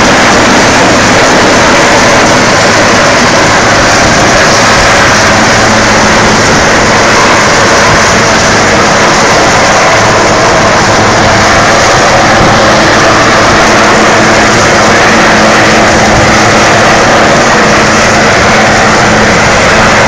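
Coast guard search-and-rescue helicopter hovering low overhead: very loud, steady rotor and turbine noise.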